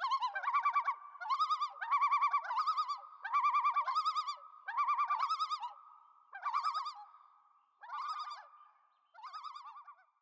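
Common loon giving its tremolo call: about a dozen short, rapidly wavering phrases, coming further apart and fading toward the end.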